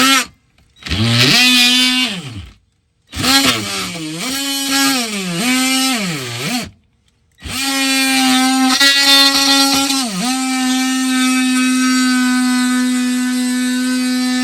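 Handheld electric power tool cutting the plastic underbody cover: the motor runs in short bursts, its pitch sagging and recovering as it bites into the plastic, then runs steadily from about seven seconds in, dipping once briefly around ten seconds in.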